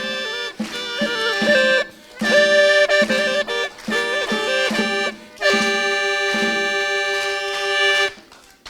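Hulusi, a Chinese gourd flute with free reeds, playing a folk melody over a steady drone note with a lower pulsing note beneath. The tune closes on a long held note that stops shortly before the end.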